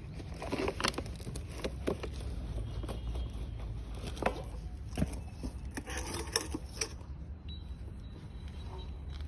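Handling noises: rustling, scrapes and scattered clicks and knocks as a cloth bag is worked and a stainless steel bowl is taken out, with brighter metallic clinks about six seconds in, over a steady low rumble.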